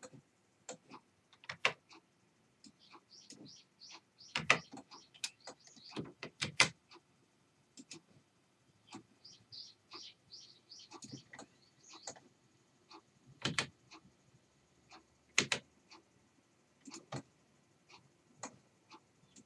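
Irregular computer mouse clicks and keyboard taps, a few of them sharper and louder than the rest, with clusters of faint, high bird chirps in between.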